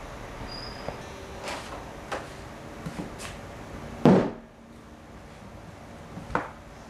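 A string of light knocks and clicks, with one louder thud that rings briefly about four seconds in and a smaller knock near the end.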